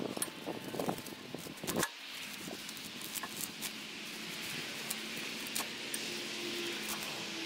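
Rustling and metallic clinking as dry grass and roots are tugged loose from a rototiller's steel tines. The clinking is busiest in the first two seconds, then thins to scattered clicks over a faint steady hum.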